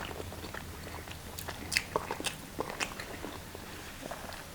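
Biting and chewing food close to the microphone: a scattering of short, crisp clicks and crunches.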